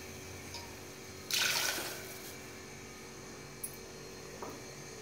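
A brief hiss of water in the hot cooking pot about a second and a half in, over a steady electrical hum.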